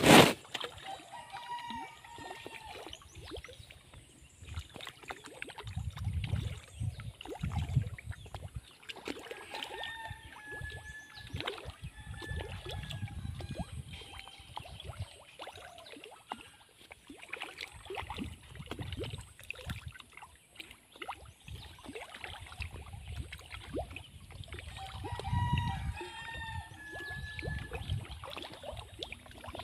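Pond water gurgling and ticking with small irregular splashes as fish rise to the surface by the bank, with low rumbles on the microphone coming and going. A sharp click right at the start is the loudest sound.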